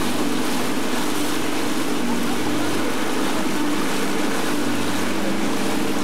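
Motorboat engine running steadily with a constant low hum, over an even hiss of water and wind.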